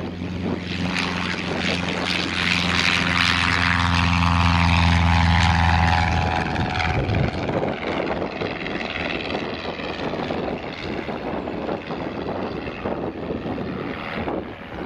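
Reims Cessna F150M light aircraft at full power on take-off and climb-out: the steady drone of its four-cylinder Continental O-200 engine and propeller, loudest as it passes and sinking slightly in pitch. About halfway through the clear engine tone breaks off, leaving a fainter, noisier drone as it climbs away.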